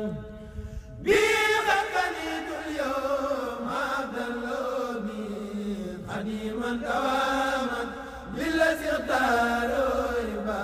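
Khassida, a Mouride devotional poem in Arabic, being chanted in long, drawn-out melodic phrases, with short pauses between lines.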